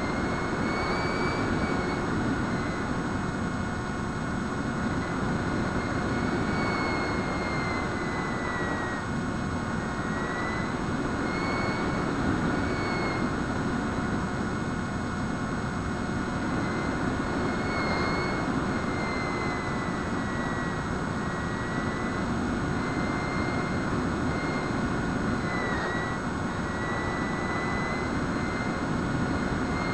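Electric motor and pusher propeller of a Bixler foam RC plane whining in flight, the whine's pitch drifting up and down every few seconds, over a steady rush of wind, heard from the plane's onboard camera.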